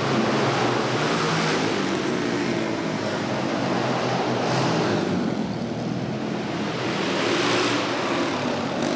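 Several flat-track racing motorcycles running hard around a dirt short track, their engine notes layered over one another. The sound swells as bikes pass, about a second in, halfway through and again near the end.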